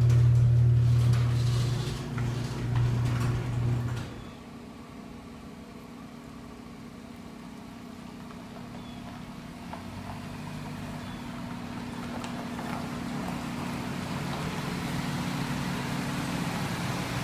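Car engine idling, heard from inside the car. A loud low hum in the first four seconds drops away suddenly, leaving a steadier hum that slowly grows louder.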